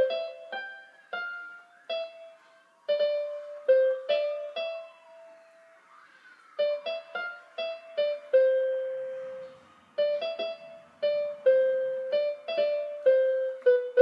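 Casio light-up electronic keyboard playing a slow melody one note at a time, each note struck and left to fade, in halting phrases with a pause about five seconds in as the tune is picked out from memory.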